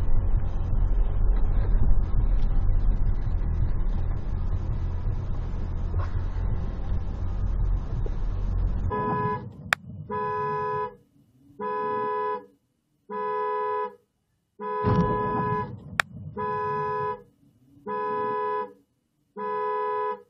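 Steady road and tyre noise on a wet road, heard from inside a moving car. About nine seconds in it gives way to a car horn sounding in seven steady blasts of about a second each, at an even pace of roughly one every second and a half.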